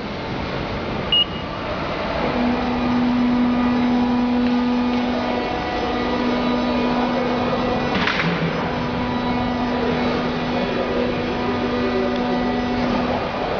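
SAF MATIC Productome 6 CNC plasma cutting machine running: steady mechanical noise with a steady hum that starts about two seconds in and stops near the end. A short high beep about a second in and one brief sharp hiss about eight seconds in.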